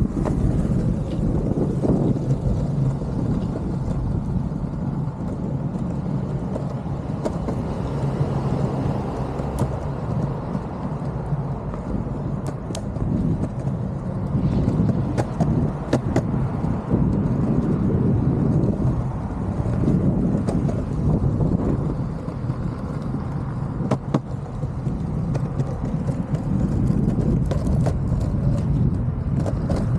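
Longboard wheels rolling steadily over pavement, a continuous low rumble with scattered sharp clicks as the wheels cross cracks and joints.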